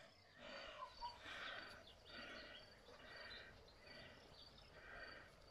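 Faint outdoor animal calls: a short call repeated about once a second, with a faint high chirping behind it.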